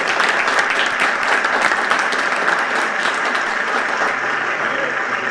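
Audience and contestants applauding, a dense patter of many hands clapping that begins to die down near the end.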